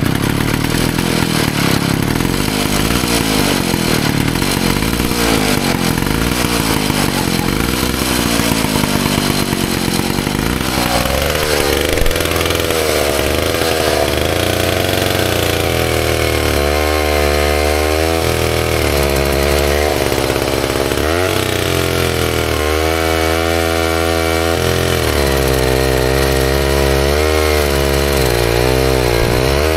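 Vintage McCulloch bow saw's two-stroke engine running at speed. About a third of the way in, the chain goes into a log and the engine note drops, then rises and falls repeatedly as the saw works through the cut.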